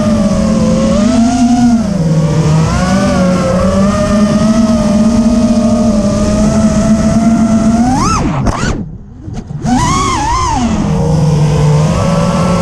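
FPV racing quadcopter's brushless motors and propellers buzzing in flight, the pitch drifting up and down with the throttle. About 8 s in the buzz rises sharply, then drops away for about a second as the throttle is cut, and comes back up.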